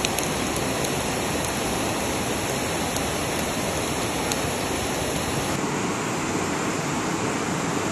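Fast-flowing floodwater rushing in a steady, loud, even noise of churning water. Its tone shifts slightly about five and a half seconds in.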